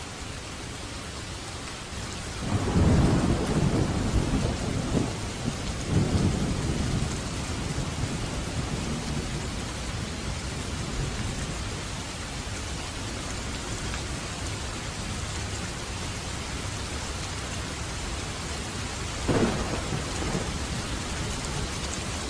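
Steady rain falling, with a rumble of thunder about two seconds in that swells and fades over several seconds, and a shorter rumble near the end.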